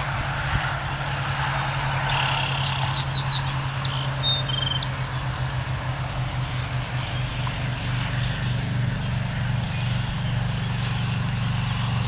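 Steady low engine hum, like an idling vehicle, with brief high chirps and trills of small songbirds about two to five seconds in.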